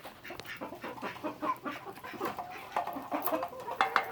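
A flock of backyard chickens clucking and chattering together while they feed, with small pecking clicks.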